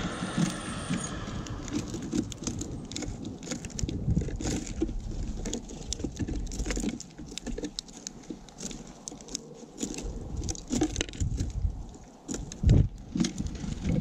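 House sparrows pecking and scratching through mixed seed on a platform feeder right at the microphone: an irregular patter of sharp taps and rattling seeds, with low thumps and rustles as the birds hop about.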